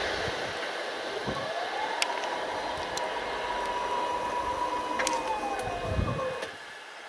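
Regional electric multiple unit running away along the line, a steady rushing rumble that drops off near the end. Over it a whine glides up, holds for about three seconds, then glides back down, with a few short high clicks.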